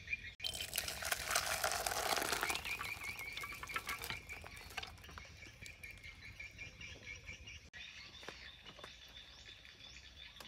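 Frogs calling in a fast, steady pulsing trill. A louder crackling burst comes over it for about two seconds near the start.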